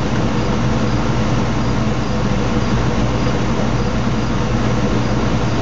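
A steady, loud mechanical hum with a constant low drone and noise, and a faint high chirp repeating about twice a second above it.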